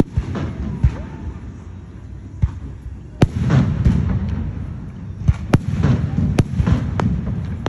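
Aerial fireworks shells bursting overhead: sharp bangs every second or so, each followed by a low rolling boom, the loudest a little past the middle and several in quick succession toward the end.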